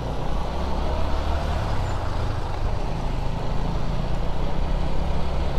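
Motorcycle engine running at road speed under a steady rush of wind and road noise, while the bike overtakes a small truck.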